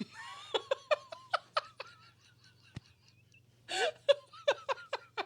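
People laughing: two bouts of breathy, rhythmic laughter separated by a short pause.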